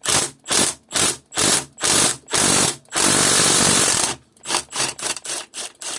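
Socket ratchet clicking in repeated back-strokes, about two a second, with a longer unbroken run of clicking around the middle and quicker, shorter strokes near the end, as a small 10 mm socket works a bolt on an inlet manifold.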